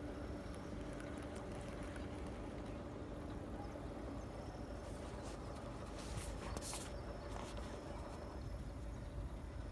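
Outdoor ambience at a riverside fishing spot: a steady low background noise with a faint hum, and a few brief scratchy handling noises about six seconds in.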